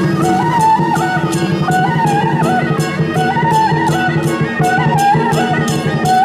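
Traditional music: a melody on a wind instrument, moving in steps, over a steady percussion beat of about three strokes a second.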